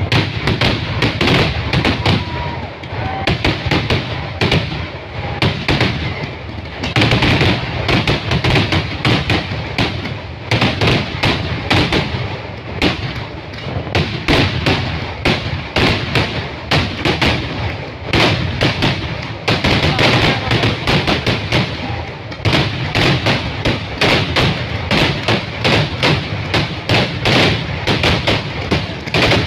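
Kerala temple-festival fireworks (vedikkettu): a dense barrage of explosions going off in quick succession, many bangs each second, with a few brief lulls.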